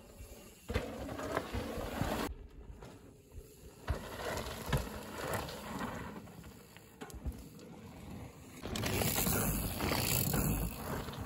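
Mountain bikes riding a dirt trail: tyres rolling and skidding on dirt, with the bikes rattling. The sound changes abruptly several times and is loudest near the end.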